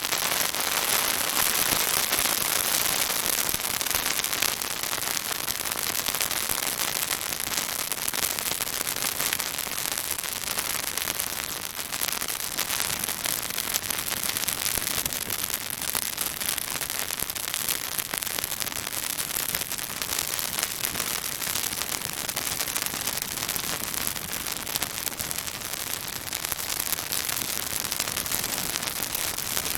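Pine branches burning in a bonfire, crackling and sizzling: a dense, unbroken run of sharp pops over a steady hiss.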